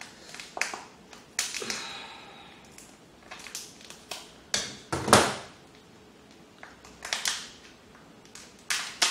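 Boiled shellfish shell being cut and cracked apart by hand: a string of sharp cracks and snaps, the loudest about five seconds in.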